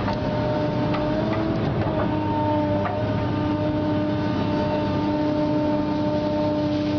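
Excavator running under load as its trencher fang attachment digs a narrow trench, giving a steady whine over the machine's running noise. A few short, sharp clicks from the attachment working in the soil come in the first few seconds.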